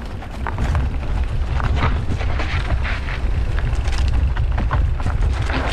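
A mountain bike rolling fast down a dry dirt-and-rock singletrack, with frequent clicks and rattles of tyres on loose stones. Wind buffets the action camera's microphone with a steady low rumble.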